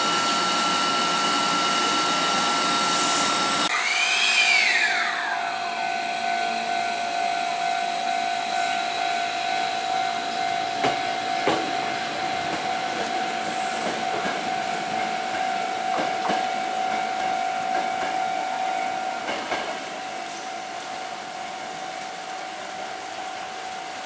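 Hankyu 1000-series electric train pulling out of the station: a high electric whine that suddenly arches up and drops in pitch about four seconds in, then holds a steady lower tone. A few wheel clicks over rail joints sound as the train gradually fades away.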